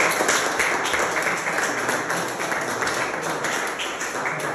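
Audience applauding, the clapping gradually fading.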